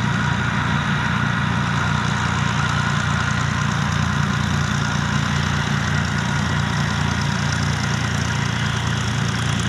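Cessna 172G's six-cylinder Continental O-300 piston engine and propeller running steadily at low taxiing power as the aircraft taxis past.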